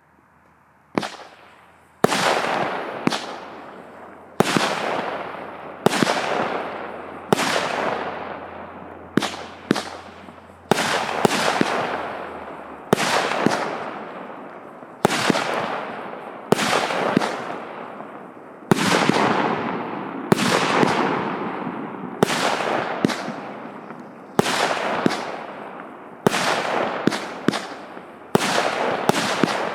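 A 100-shot, 0.8-inch fireworks cake (Joker Fireworks 'Konfetti' JF C20-100/03U) firing: a faint hiss, then a sharp bang about every one and a half seconds, each trailing off in a long fading hiss as the effect burns out.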